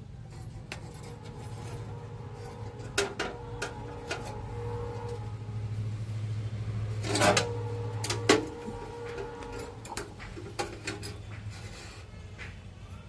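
A steady low hum with scattered clicks and knocks of objects being handled; the loudest knocks come a little past the middle.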